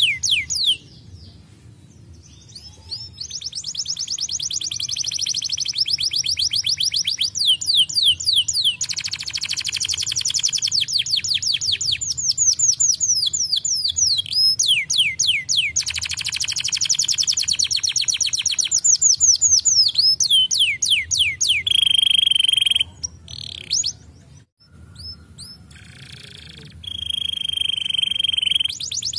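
Domestic canary singing in fast rolling trills of quick up-and-down sweeping notes. It breaks off briefly about a second in and again near the end, and holds a steady high whistled note twice late on.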